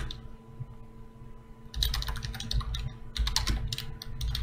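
Computer keyboard being typed on in quick bursts of keystrokes. It pauses for about a second and a half near the start, then resumes.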